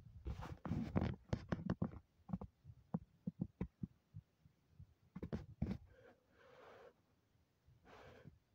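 Knocks, taps and rustles of handling close to the phone's microphone as a small curly-coated dog paws at the person filming, with clusters of taps in the first two seconds and again about five seconds in, and a couple of short hissing rustles near the end.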